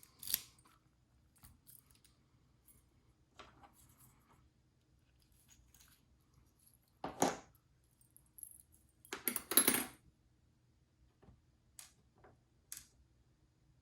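Small metal parts of an ABUS 72/40 padlock clicking and clattering as the lock is taken apart, with scattered light clicks and two longer metallic rattles, about seven seconds in and just after nine seconds.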